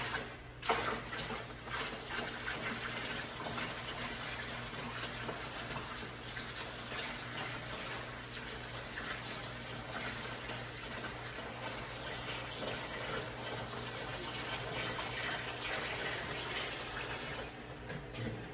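Water poured steadily from a plastic bucket into a turtle tank, splashing for about seventeen seconds before tapering off near the end. A couple of knocks sound at the start as the bucket is tipped.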